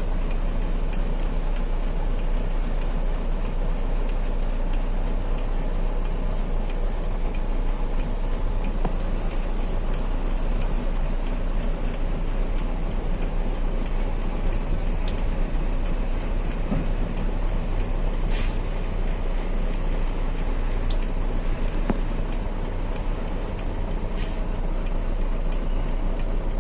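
Heavy truck running on the road: a steady engine and road noise, with a faint regular tick about twice a second. A short hiss comes about 18 seconds in and another about 24 seconds in.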